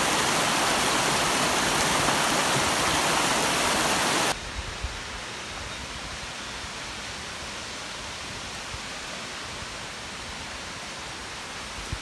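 A stream rushing over rocks close by, a loud steady rush. About four seconds in it cuts suddenly to a softer, steady rush of a waterfall further away.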